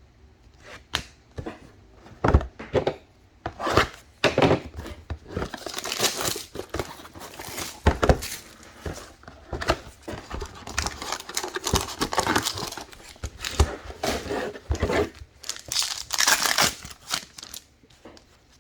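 Trading-card pack wrappers being torn open and crinkled by hand. A few sharp crackles at first, then a dense run of crackling and rustling that stops shortly before the end.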